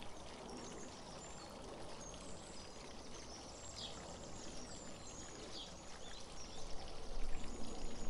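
Garden water fountain running steadily, with small birds chirping in short high notes throughout. Near the end, magazine paper rustles as a page is turned.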